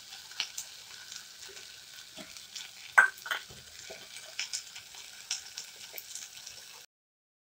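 Onion, tomato and ginger masala sizzling as it fries in a stainless steel pot, with a steel ladle scraping and clinking against the pot as it is stirred; one sharp clink about three seconds in is the loudest. The sound cuts off suddenly near the end.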